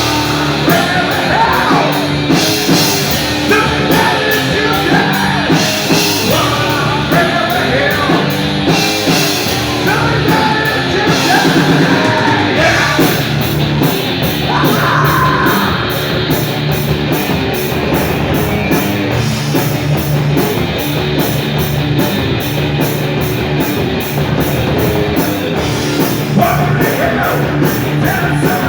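Live heavy rock band playing loudly: distorted electric guitar, bass and drums with steady cymbal hits, and a singer's voice, at times shouted, over the top.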